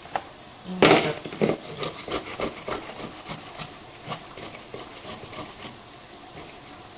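Halved tomatoes rubbed on a metal box grater into a plastic bowl, grating them down for homemade tomato paste. There is a knock about a second in, then rasping strokes about three a second that fade out in the second half.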